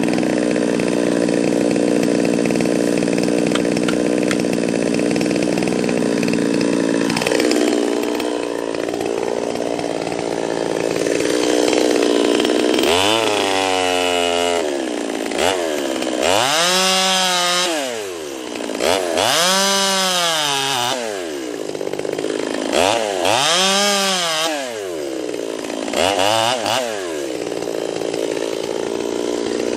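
Ported Stihl chainsaw running at a steady full throttle in a cut. About seven seconds in its pitch drops. In the second half it is revved up and back down about five times, roughly once every three seconds.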